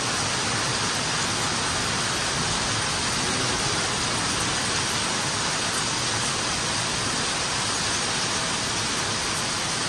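Heavy rain pouring down steadily, an even dense hiss with no letup.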